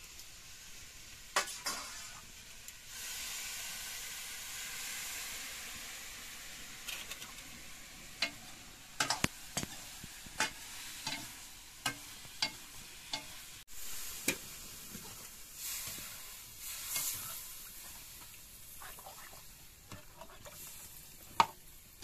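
Curry sizzling in a metal kadai over a wood fire, the hiss swelling about three seconds in. A metal spatula scrapes and clinks against the pan as it is stirred, in scattered sharp clicks, the loudest near the end.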